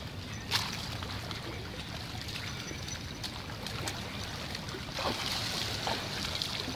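Sea water lapping and trickling around concrete breakwater blocks, with a short sharp click about half a second in. From about five seconds the water noise grows louder, ending in splashing as a foot steps into the shallow water.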